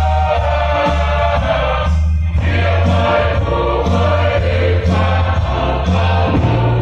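A group of voices singing a Samoan song together in chorus, over a deep, steady bass accompaniment that changes note every second or so.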